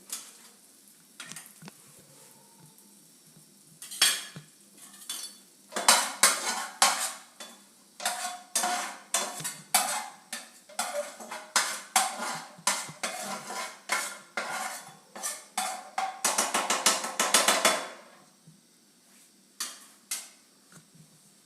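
Metal spatula repeatedly clanking and scraping against a cooking pan, about two or three strikes a second, starting about four seconds in. The strikes come fastest shortly before they stop, near the end.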